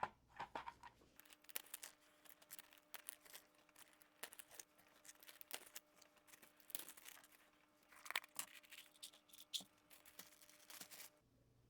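Faint crinkling and scattered light clicks of small plastic items being handled, over a faint steady hum.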